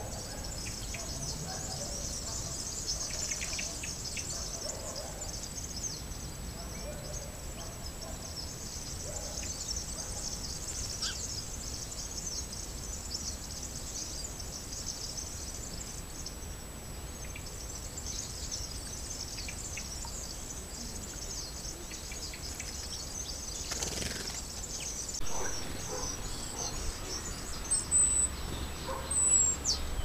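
Outdoor ambience with small birds chirping in a steady high chorus in the background, over a faint constant high whine. Two sharp, high, falling calls sound near the end.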